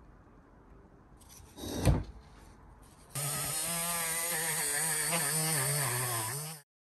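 Small rotary tool spinning a wire brush against a piston crown to scrub off carbon, starting about three seconds in; its motor pitch wavers as the brush is pressed on, and it cuts off suddenly near the end. A single sharp knock comes shortly before it starts.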